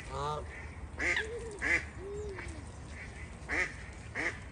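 Ducks quacking, a rapid series of short calls about two a second, each dropping in pitch, with a few lower, softer calls among them in the first half.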